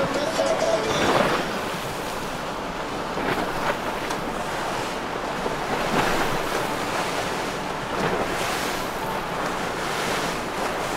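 Rushing sea water and wind, the wind buffeting the microphone, with louder surges every two to three seconds.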